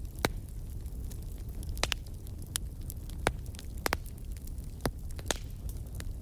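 Fireplace fire crackling: irregular sharp pops and snaps, the loudest just after the start and about three seconds in, over a steady low rumble of the flames.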